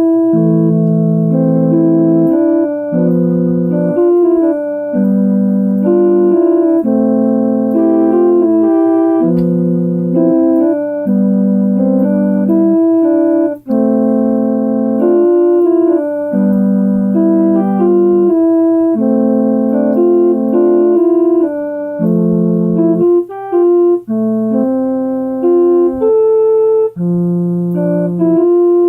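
Electronic keyboard playing a slow piece of held chords under a simple melody, the chords changing about every second or two. Each note holds at an even level and stops cleanly rather than fading away.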